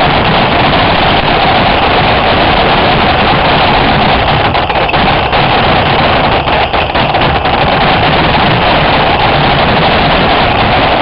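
Paintball markers firing in a continuous, heavily distorted rattle, with a steady whine running through it.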